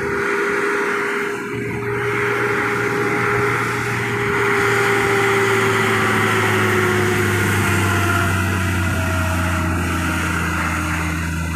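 Loaded heavy articulated truck's diesel engine pulling past slowly and close by: a steady deep drone with a whine that slowly drops in pitch.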